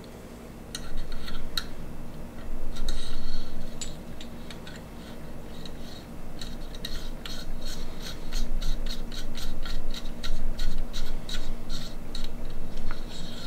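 Small clicks, taps and rubbing from handling a KME knife sharpener while its guide rod and stone holder are set up, the clicks coming thick and fast in the second half. A steady low hum runs underneath.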